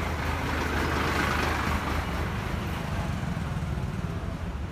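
A vehicle engine running steadily nearby, a low even rumble, with a hiss that swells briefly about a second in.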